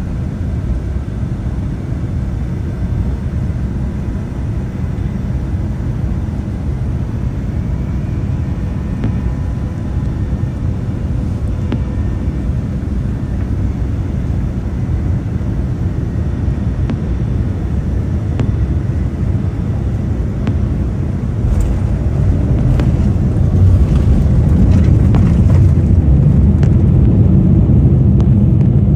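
Cabin noise inside a Boeing 787-10 airliner on final approach: a steady low rumble of engines and airflow. About 21 seconds in, a run of knocks and rattles comes as the plane touches down, and the rumble grows louder as it rolls out on the runway.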